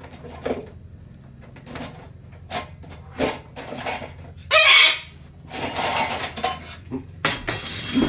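A cockatoo rummaging in a dish drainer with its beak, making dishes and cutlery clink and rattle in many short clatters, with a few louder scrapes about halfway through and near the end.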